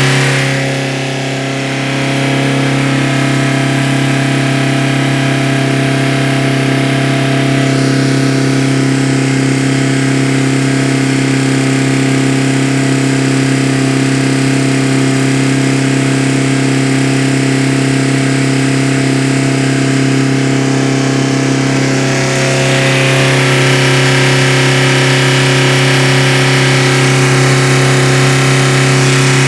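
VW Caddy SDI naturally aspirated diesel engine idling steadily. About 22 seconds in it turns a little louder and brighter.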